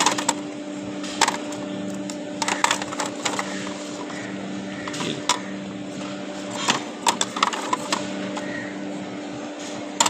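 Plastic fishing-line spools and their containers clicking and knocking against each other as they are picked up and sorted by hand, in irregular clusters of clicks. A steady low hum runs underneath.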